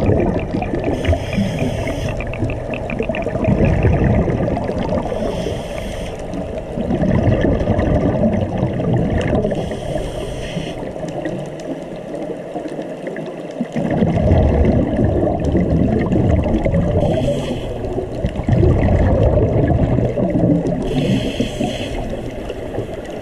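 Underwater sound heard from inside a camera's waterproof housing: an uneven low rumble and gurgle of moving water, with a short hiss about every four to five seconds, in the rhythm of a diver's breathing and bubbles.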